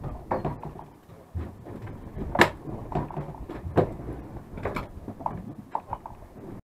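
Irregular sharp knocks and clunks on a fishing boat's deck, over a low rumble of wind and sea. The sound cuts off abruptly near the end.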